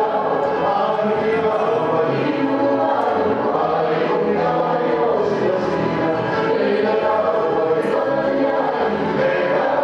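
A Hawaiian song sung by a group of voices with music, playing steadily throughout.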